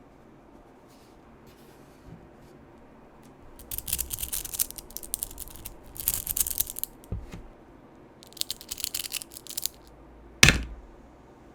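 Small magnetic balls clicking and clattering against each other in three quick bursts, then a single sharp knock near the end.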